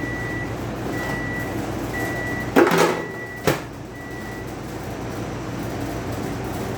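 Microwave oven beeping, a series of half-second beeps about one a second, over a steady hum. Partway through, the door is opened with a loud clunk and latched shut with a sharp click.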